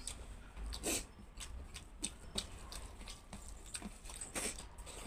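Hand mixing rice with curry gravy on a steel plate: irregular wet squishes and the clicks of fingers scraping the metal, with a few louder ones about a second in, midway and near the end.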